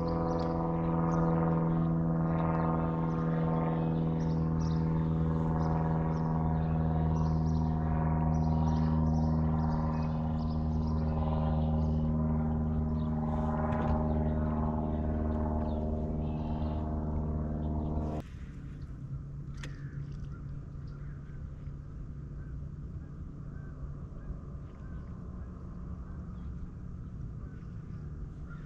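A bass boat's bow-mounted electric trolling motor running with a steady hum of many tones, which stops abruptly about 18 seconds in, leaving a fainter low hum. Birds chirp now and then.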